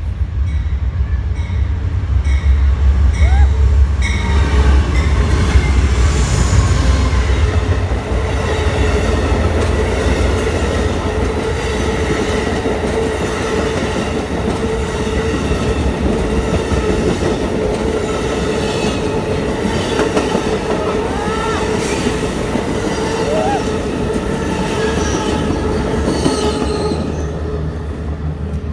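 Amtrak passenger train passing close by: a diesel locomotive's low engine rumble for the first few seconds, then the stainless-steel passenger cars rolling past with wheel clatter and a steady wheel squeal, easing near the end as the last car goes by.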